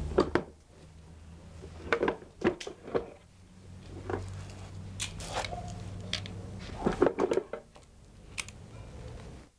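Sharp metallic clicks and clacks of handguns being handled and loaded, a dozen or so irregular clicks over a low steady hum.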